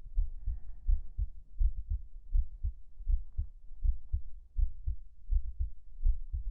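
A human heartbeat heard close against the chest: soft, low lub-dub thumps repeating steadily a little over once a second.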